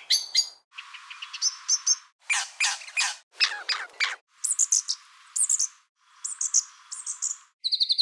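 A string of separate recordings of high-pitched bird hawk-alarm calls, about six short clips with brief silent gaps between them: the alarm calls of other species such as the common blackbird and crimson rosella, set beside a brown thornbill's mimicry of them.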